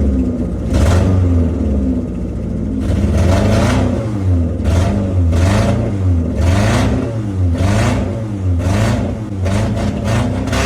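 Car engine of a handmade Dodge Challenger replica being revved in repeated short throttle blips, rising and falling in pitch about once a second, heard through a half-finished exhaust with only part of the silencer fitted.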